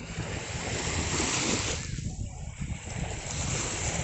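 Sea water washing and surging in two swells, with wind rumbling on the microphone.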